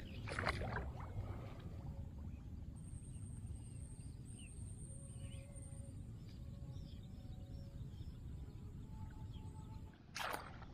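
Wind rumbling on the microphone in open country, with a squelching splash of a barefoot step in mud and shallow water about half a second in and faint bird chirps in the middle.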